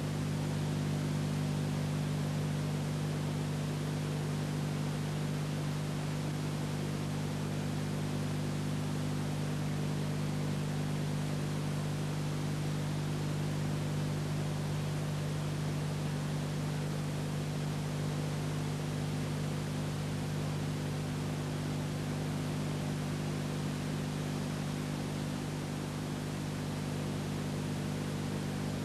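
Steady hiss with a low, several-toned electrical hum and no other sound: the background noise of an old film-to-video transfer.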